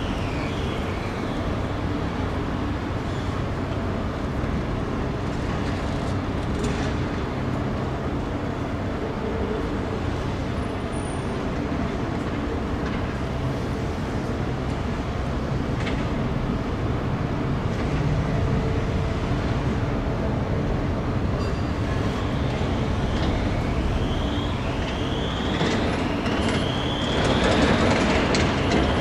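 Alstom Citadis low-floor tram waiting at a stop with a steady hum over street noise. Near the end it pulls away with a few rising electric whines from its traction drive.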